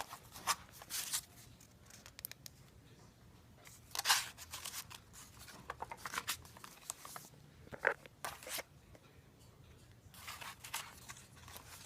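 Paper pages and tags of a handmade paper journal rustling as they are turned and handled, in several short rustles with quieter gaps between.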